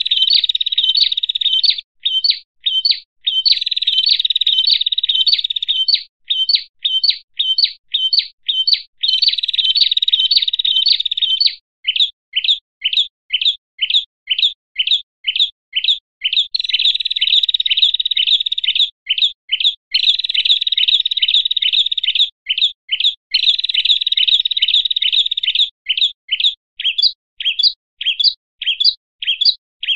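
Agitated calling of small songbirds, prenjak among them, from a bird-lure recording. Sharp separate chirps come about three a second, alternating with dense, fast chattering that lasts two to three seconds at a time. This alarm-like 'ribut' calling is used to provoke other prenjak into coming in.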